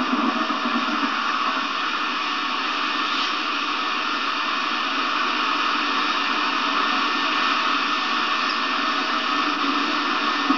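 Steady, even hiss with a faint underlying hum and no distinct events: the background noise of an old analogue videotape recording.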